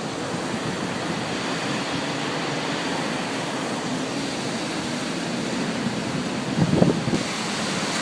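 Steady rushing of strong storm wind, with wind buffeting the microphone and a brief swell near the end.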